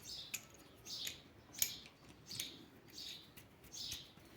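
A small bird chirping faintly over and over, a short high call about every three-quarters of a second, with a few light clicks in between.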